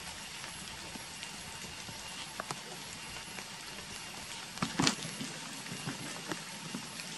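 Steady outdoor forest background hiss with a few scattered soft clicks, and a brief cluster of crackles a little past the middle.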